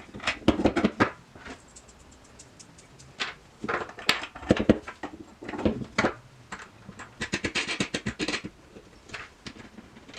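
Metal bolts, washers and wing nuts clicking and rattling against the wooden loom frame as they are fitted, in several short bursts, the last a quick run of clicks.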